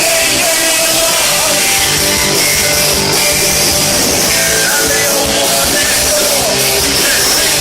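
Punk rock band playing live at full volume: distorted electric guitars, bass and drums, recorded from the crowd.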